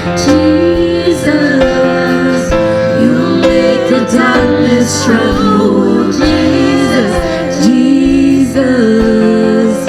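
Live worship music: a sustained keyboard accompaniment with a woman's voice singing a gliding melody over it.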